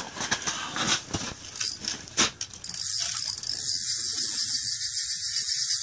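Ice-fishing reel: irregular clicking and handling for the first couple of seconds, then, from about two and a half seconds in, the drag giving out a steady, high-pitched buzz as a big lake trout pulls line off through the ice hole.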